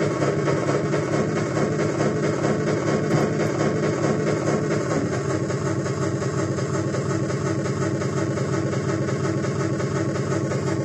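Korg Volca Bass synthesizer played through a DL 301 digital delay line: a dense, droning synth pattern whose repeating echoes pile into a steady, rapidly pulsing wash of sound.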